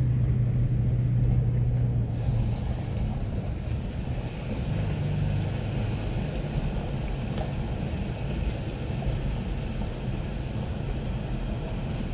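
Vehicle driving slowly, heard from inside the cab: a steady low engine hum with tyre noise as it rolls over gravel and onto the wooden plank deck of a covered bridge.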